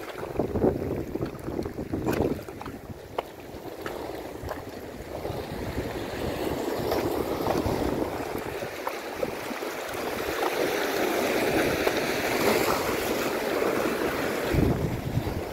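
Sea waves washing and breaking over shore rocks, with wind buffeting the microphone. The rush of the surf grows fuller about five seconds in.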